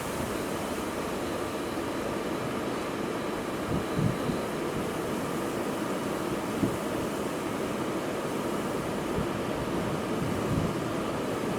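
Wind rushing across the microphone: a steady hiss with a few brief low buffets, about four, seven and ten and a half seconds in.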